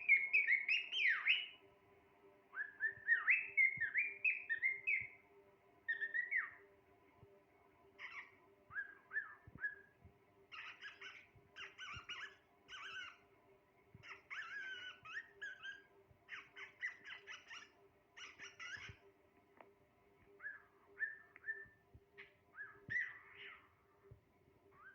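Cockatiel whistling and warbling: gliding, up-and-down whistled phrases in the first seven seconds, then a run of quick scratchy chattering notes, and short whistles again near the end.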